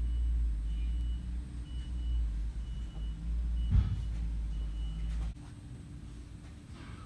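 A short high electronic beep repeating about once a second over a loud low rumble. There is a single thump about four seconds in, and the rumble cuts off abruptly about five seconds in, leaving a quieter steady hum.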